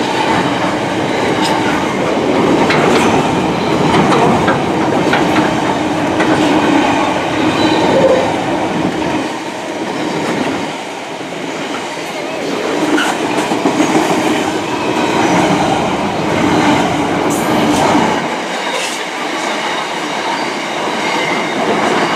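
A freight train's wagons rolling steadily past on the main line, wheels running over the rails with a continuous rumble and scattered clicks, plus faint thin high tones.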